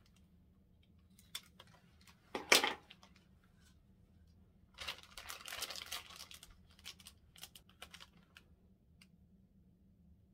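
A plastic candy-kit packet being cut open with scissors and handled: a sharp cut or tear about two and a half seconds in, then plastic crinkling for a second or two, with scattered small clicks.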